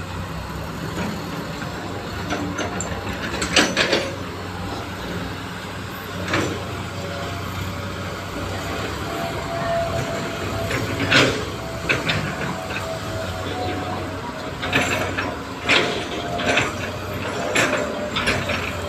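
Hydraulic excavator's diesel engine running steadily as it digs mud, with sharp metallic knocks every few seconds that come more often near the end.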